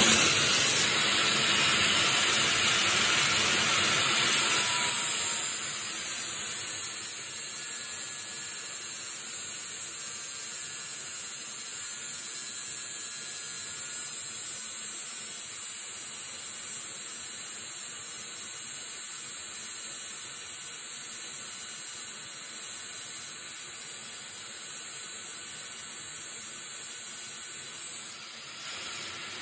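Angle grinder running against a metal rod that spins in a drill press chuck, which stands in for a lathe: a steady hissing grind with a high whine. The grinding cuts off near the end.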